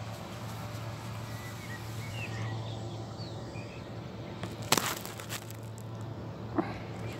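Outdoor ambience with a steady low hum and scattered short bird chirps in the first half. Two sharp knocks of phone handling noise, the louder about two thirds of the way in and another near the end.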